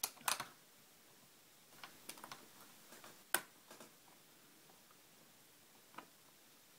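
Light, scattered plastic clicks and taps as hands and a small screwdriver work the plastic screen bezel of a Lenovo ThinkPad T520 laptop back into place. A few clicks come right at the start and more come about two seconds in. The sharpest single click is just after three seconds, and one more comes near the end.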